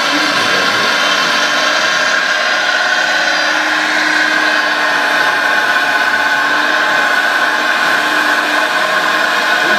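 Radio-controlled model excavator's electric drive and pump whining steadily as it digs and swings, with a lower hum joining in midway.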